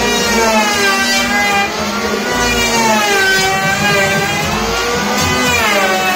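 Handheld electric wood planer running while cutting along a wooden beam, its motor whine sagging in pitch under load and climbing back a few times.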